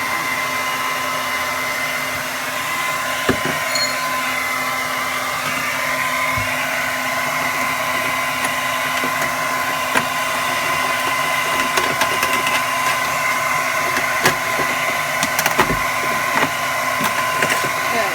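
Hair dryer running steadily on high, a rushing blow with a steady whine, held on the ice packed around a frozen freezer condensate drain to melt it. A few light clicks and taps are scattered through it.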